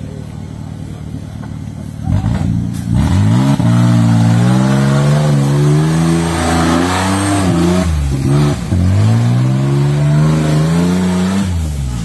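Modified off-road 4x4's engine idling, then revving hard under load about three seconds in as the truck ploughs through deep mud. The revs dip briefly around eight seconds in, climb again, and fall away near the end.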